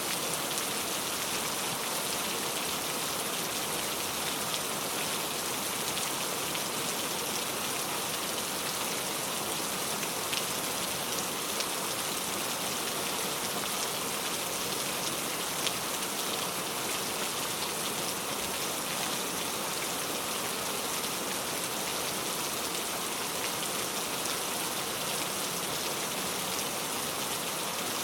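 Steady heavy rain falling in a forest, an even hiss with many small drops pattering on leaves and ground.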